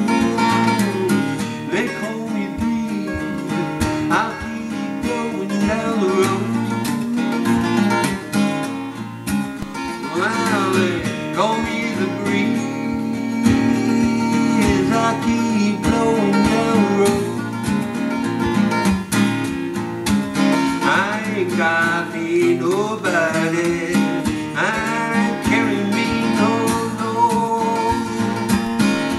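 Acoustic guitar playing a blues instrumental break: a steady run of picked bass notes with lead lines over it.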